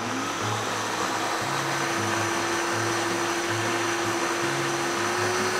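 Countertop electric blender running steadily, puréeing boiled tomatoes, onions and pepper; its motor pitch rises a little as it comes up to speed at the start.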